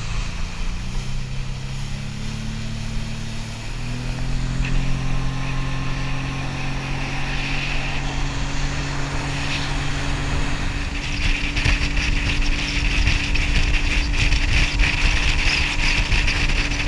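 Boat engine running under way, its pitch rising in steps over the first few seconds as the boat speeds up, then holding steady. A rushing noise of water and wind grows louder in the last few seconds.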